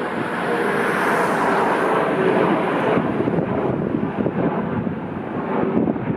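Airliner's engines running loud as the aircraft passes, with a hiss that swells about a second in and then fades, over strong wind buffeting the microphone.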